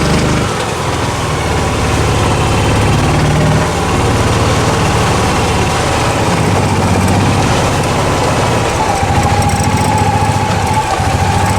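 Cushman utility vehicle's small engine running steadily with a low, even drone.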